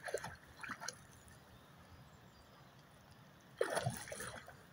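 Faint water trickling and dripping, with light splashing from a dog moving in the water, and a brief louder sound about three and a half seconds in.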